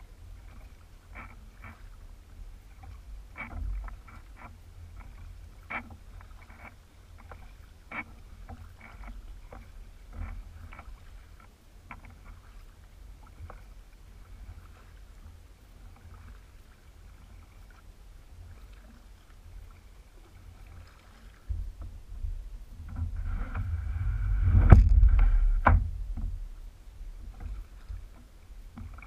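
Kayak being paddled with a double-bladed paddle: irregular light ticks and drips from the blade strokes over a low rumble. Near the end there is a louder stretch with one sharp knock.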